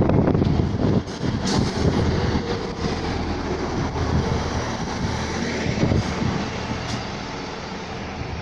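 ScotRail Class 158 diesel multiple unit rumbling at the platform with a steady low engine hum. The noise drops sharply about a second in, then slowly fades.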